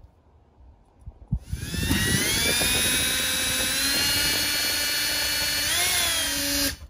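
Power drill with a twist bit spinning up to a steady high whine and boring into the metal window frame, hard going through the metal. The pitch sags briefly near the end as the bit loads, then the motor stops abruptly.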